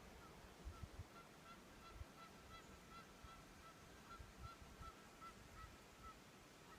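Faint series of short, evenly spaced honking calls, about three a second, over a low steady background hiss.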